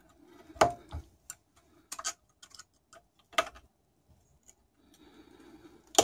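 Needle-nose pliers working a snap ring in a turbocharger housing: a run of sharp, irregular metal clicks as the pliers tips slip and catch on the ring, with louder clicks about a second in and about three and a half seconds in, and a faint scraping near the end.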